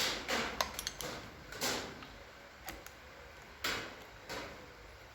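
Metal machine parts being handled and fitted back by hand: a few sharp clicks in the first second, then several short scraping slides of metal against metal.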